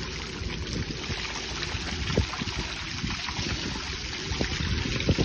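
Shallow floodwater splashing and sloshing as someone wades through it on foot, with irregular low thuds and wind buffeting the microphone.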